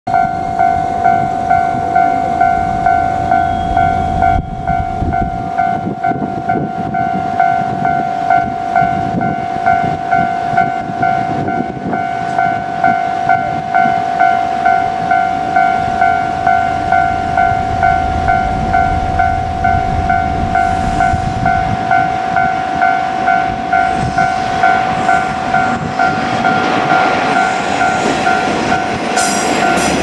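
Japanese level-crossing warning bell ringing, an electronic chime repeating about twice a second. In the last few seconds the engine and wheels of an approaching KiHa 47 diesel railcar grow louder beneath it.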